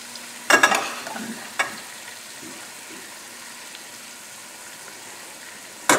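A utensil scrapes and knocks against dishware a few times as Israeli couscous is served onto a plate, over a steady hiss. The strokes come early on and once more near the end.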